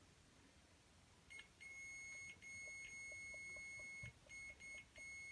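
Multimeter continuity buzzer giving a steady high beep, starting with a short blip about a second in and then holding, cutting out briefly four times as the probe contact breaks. The beep is the continuity signal: the wire being probed is connected.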